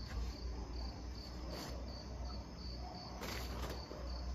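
Crickets chirping at night in a steady, even pulse of about three chirps a second, over a steady low hum. Brief rustling noises come about one and a half seconds in and again a little past three seconds.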